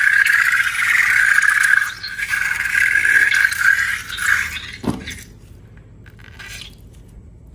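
A high, wavering squealing scrape for about four and a half seconds, ending in a short downward-sliding tone, followed by faint quieter handling sounds.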